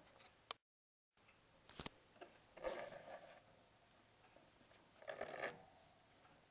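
Faint rustling and scraping from handling in a plastic cage bed as a hand strokes pet rats: a sharp click, then two short rustles a few seconds apart. The sound cuts out entirely for about half a second near the start.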